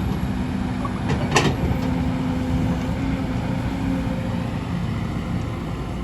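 Kobelco hydraulic excavator's diesel engine running steadily under load, with one sharp clank about a second and a half in.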